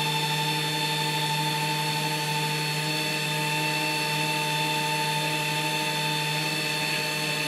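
Steady hum and whine of a C-17A Globemaster's onboard machinery heard from inside the cargo hold, several even tones over a low drone that holds level throughout.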